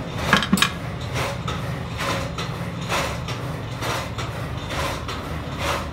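Sharp metal clanks about half a second in as a large steel hex nut is taken out of a lathe's three-jaw chuck. Underneath is a steady machine hum with a regular knock a little more than once a second.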